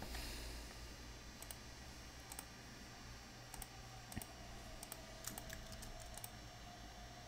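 Faint, scattered clicks of a computer keyboard: a dozen or so isolated taps, some in quick pairs, spread unevenly.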